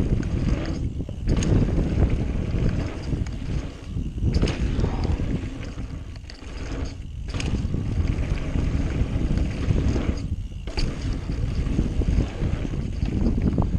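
Wind rushing over an action camera's microphone while a mountain bike rides fast down a dirt trail, over the low rumble of the tyres on the dirt. A few sharp clicks and rattles from the bike come through.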